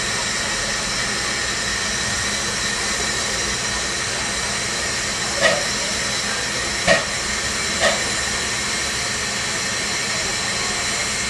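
Krauss-built Bavarian Pt 2/3 steam tank locomotive 70 083 standing with steam hissing steadily. Three short knocks come about halfway through, a second or so apart.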